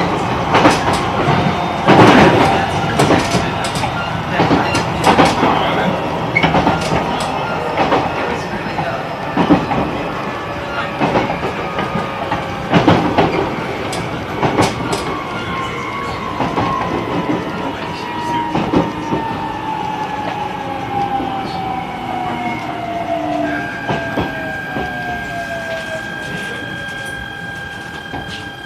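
E129 series electric train running on the rails, wheels clacking over rail joints, with its Toyo Denki IGBT inverter and traction motors whining steadily lower in pitch as the train slows toward a station stop. About 23 seconds in, a steady higher tone sets in, and the clacking and overall sound fade.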